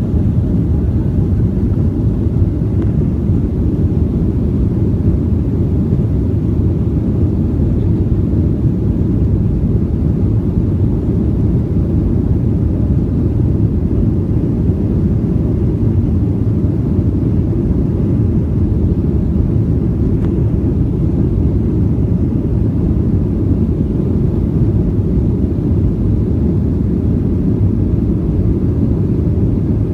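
Steady low rumble of a jet airliner's engines and airflow, heard from inside the passenger cabin while the plane flies out over the sea after takeoff.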